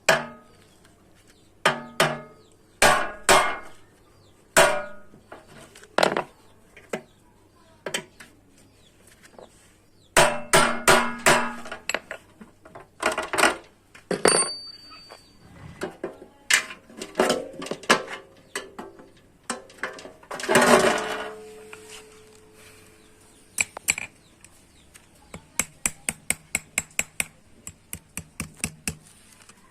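Hand hammer striking a sheet-metal bread-baking pan: irregular single blows and short flurries. One heavy blow a little after the middle leaves the metal ringing for a second or so, and near the end comes a run of quick light taps, about three a second.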